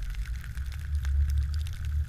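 Skis sliding over snow with a scraping hiss and scattered small clicks, under wind rumbling on the microphone that grows stronger about half a second in.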